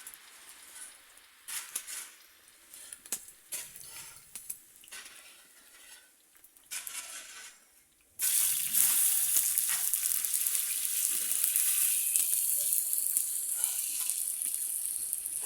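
Scattered light clinks and knocks of kitchen utensils, then about 8 seconds in a sudden loud sizzle of food frying in hot oil, which eases off slowly.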